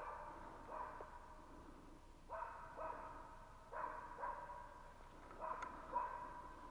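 West Siberian laikas barking faintly and repeatedly, the barks mostly coming in pairs about half a second apart: the dogs baying a bear.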